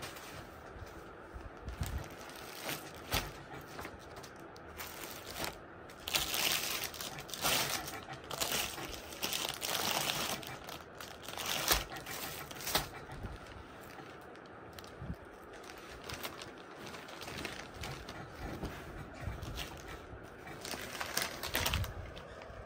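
Clear plastic garment packaging crinkling and rustling in irregular spells as a folded velvet suit is taken out and unfolded by hand.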